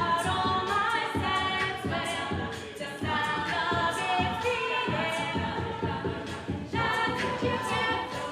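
A cappella group singing in several-part harmony over a steady beat.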